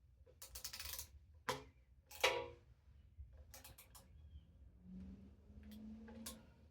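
Hand tool tightening the small bolts of a motorcycle's front-fender headdress: a series of short scraping and clicking handling noises, the loudest about two seconds in.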